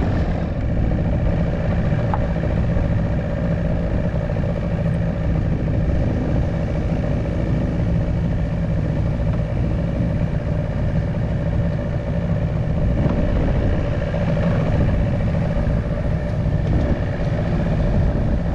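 Outboard motor of a small fishing boat running steadily at low speed: an even engine drone with no change in pitch.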